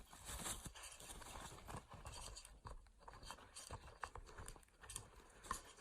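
Faint, irregular scraping and tapping of a parrot's claws on the tube it is squeezing through, with a few sharper clicks in the second half.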